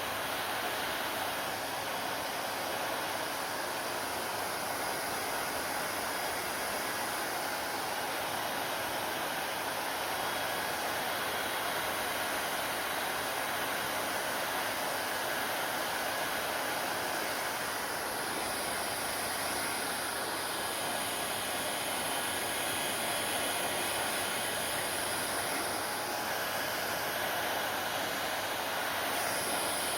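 Hair dryer running steadily: a constant rush of blown air and motor noise, with no change in speed.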